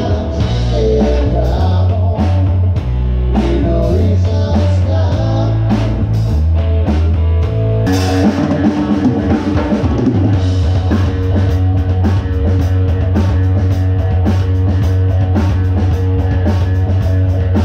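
Rock band playing loudly, with drum hits, a steady bass line and guitar; the music gets fuller and brighter about halfway through.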